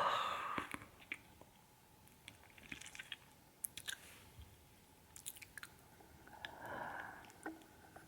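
Close-miked mouth sounds: the tail of a yawn fades out in the first half second, then scattered small wet clicks and smacks of the lips and tongue follow, with a soft breath about seven seconds in.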